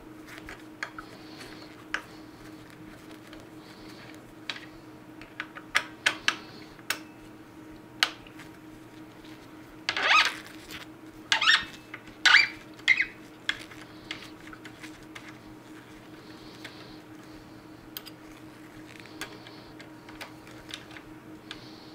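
Scattered clicks and clinks of a chainsaw combination wrench working the handle screws out of a Stihl 500i chainsaw, with a run of louder clicks around ten to thirteen seconds in.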